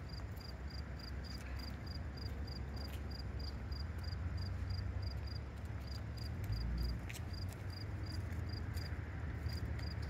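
An insect, cricket-like, chirping steadily at about three short, high chirps a second, with a short break near the end. Under it runs a low rumble.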